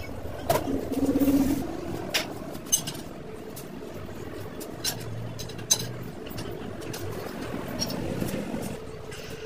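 Metal parts and tools being handled at a hydraulic shop press during a wheel bearing job: a handful of sharp metallic clinks and knocks scattered over a steady background hum, with a short louder scrape about a second in.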